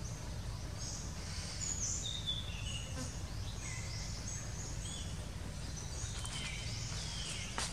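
Forest ambience with birds calling in short whistled chirps and quick falling glides, over a steady low rumble.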